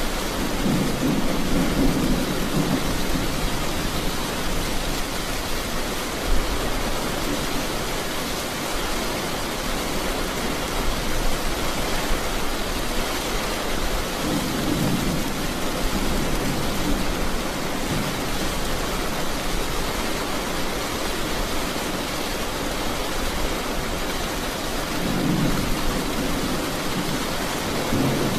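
Steady rain falling, with low thunder rumbling three times: near the start, about halfway through, and near the end.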